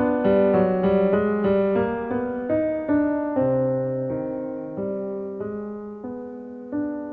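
Background piano music: a gentle melody of struck notes, each ringing and fading, several notes a second.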